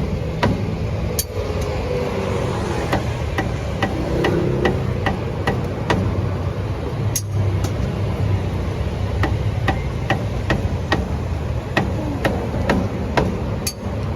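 Repeated sharp knocks, about two a second, over a steady low hum.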